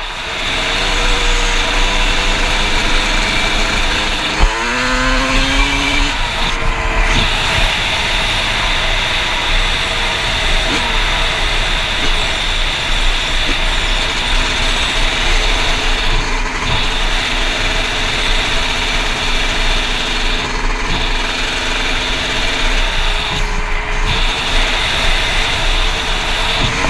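Yamaha YZ two-stroke dirt bike engine running under way, its pitch rising and falling with the throttle and climbing sharply about five seconds in, over a steady rush of wind noise.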